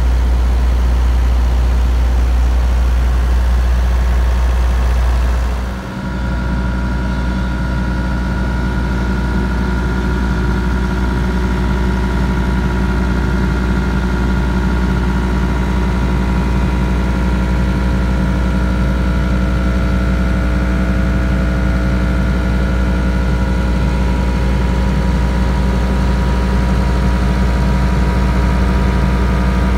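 MQ Power WhisperWatt 45 diesel generator running steadily, its Isuzu B-4BG1 four-cylinder diesel giving a constant low hum. About six seconds in the sound dips briefly and its tone shifts, then it carries on evenly.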